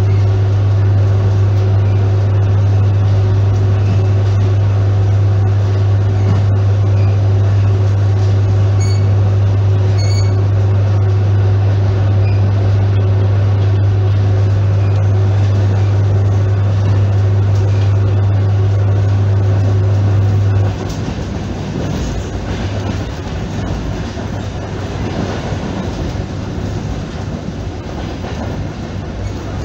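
ER9P electric multiple unit under way, heard from inside the carriage: a steady low electrical hum over the rumble of wheels on rail. About two-thirds of the way through the hum cuts off abruptly, leaving only the running noise.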